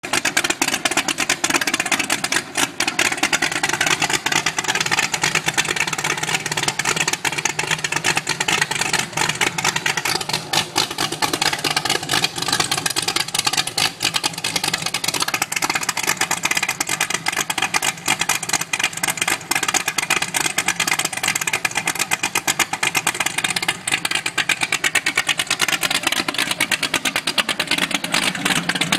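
Twin Mercury Racing 575 SCi supercharged 8.2-litre V8 sterndrive engines running steadily at low speed, exhausting through the transom.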